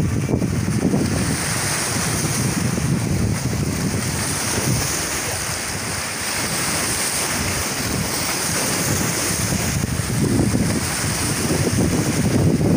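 Sea waves washing and breaking against shoreline rocks, swelling and easing, with wind buffeting the microphone.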